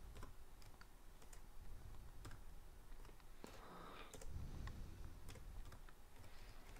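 Faint, slow typing on a computer keyboard: scattered single keystrokes, a letter at a time.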